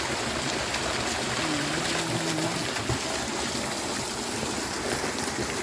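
Steady rushing of water from a small pipe-fed man-made waterfall.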